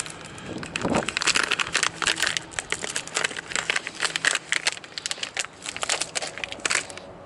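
Plastic packaging crinkling and crackling as it is handled, a dense irregular run of crackles that stops just before the end.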